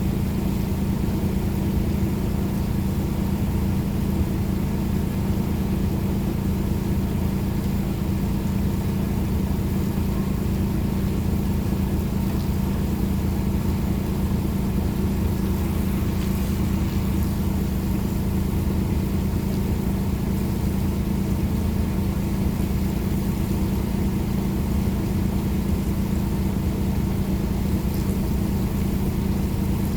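Engine running steadily at constant speed, a low, even drone that does not change.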